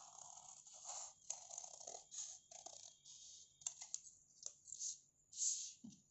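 Large metal tailor's shears cutting a curve through stiff buckram: a run of faint, irregular crisp snips and crunches with short pauses, ending with a light knock as the shears are set down on the table.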